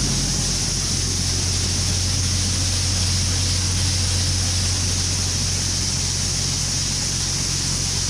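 Farm machinery engine running steadily, a constant low hum under a steady hiss.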